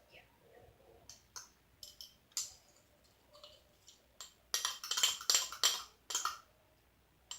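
A utensil stirring and scraping slime mixture in a container: scattered clicks and short scrapes, then a run of brisk, louder scraping about four and a half seconds in.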